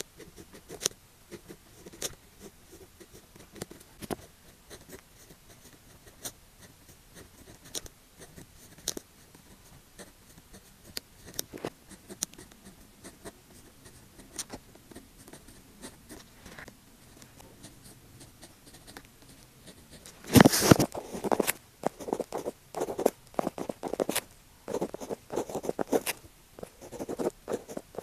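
Pen writing on paper: short scratchy strokes and light taps, sparse at first, then louder and more frequent from about twenty seconds in.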